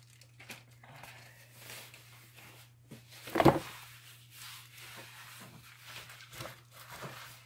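Large rolled diamond-painting canvas being unrolled and pressed flat on a tabletop: soft rustling and crinkling of the sheet, with one louder rustle about three and a half seconds in.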